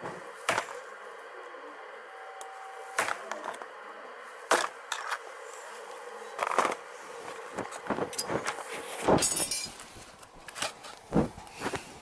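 Flat screwdriver prying at the metal band clamp of a CV joint boot, giving sharp metal clicks, scrapes and snaps at irregular intervals, with a quick cluster of them about nine seconds in.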